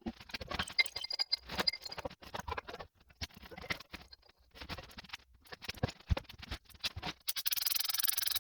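Metal tools and parts clinking and knocking: a quick run of irregular clicks, with a brief metallic ring about a second in. From about seven seconds in, a steady hiss starts.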